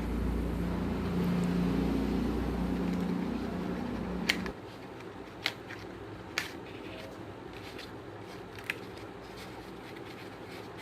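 A steady low mechanical hum that cuts off abruptly with a click about four seconds in. After it, a few light clicks and taps sound against quiet room noise.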